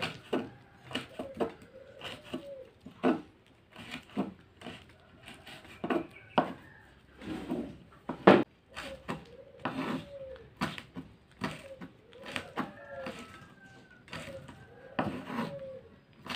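Kitchen knife slicing curly red chilies on a wooden cutting board: irregular taps of the blade striking the board, with one loud knock about eight seconds in. A dove coos every few seconds in the background.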